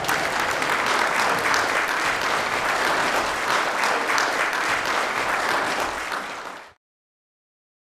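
Audience applauding, a dense patter of many hands clapping, fading out abruptly near the end.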